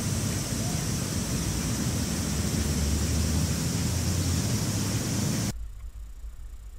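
Steady outdoor noise: a low rumble under a high hiss. It cuts off abruptly about five and a half seconds in, leaving a much quieter background.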